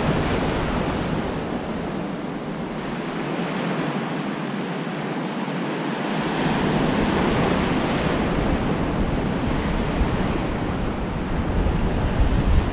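Ocean surf breaking and washing up a sandy beach in a steady, swelling rush. Wind buffets the microphone with a low rumble that eases off in the middle and comes back strongly for the second half.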